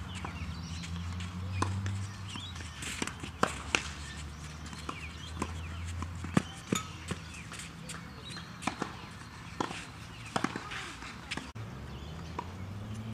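Tennis ball being served and rallied on a clay court: sharp pops of racket strings striking the ball and the ball bouncing, irregularly spaced, the loudest about six and a half seconds in, over a low steady hum.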